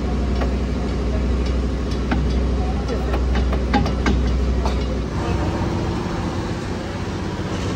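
Heavy steel excavator wheel hub drum knocking and clinking against the axle spindle and its studs as it is worked into place by hand. There are several sharp metal taps between about two and five seconds in, over a steady low engine drone that changes about five seconds in.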